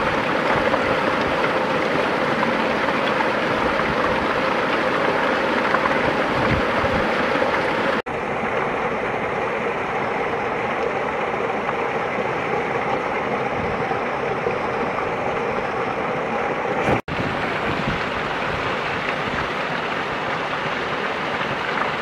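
Small waterfall of water pouring and splashing over clay and rock, a steady rush. It breaks off for an instant twice, and after the first break the sound is a little duller.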